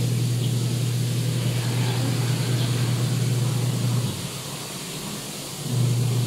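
A steady low hum, dropping away for about a second and a half near the end before returning.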